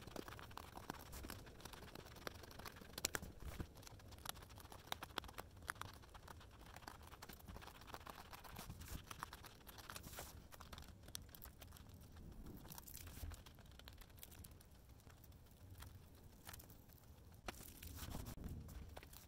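Faint snipping of scissors cutting through a diamond painting canvas, with the stiff canvas rustling and crinkling as it is handled, scattered with small clicks.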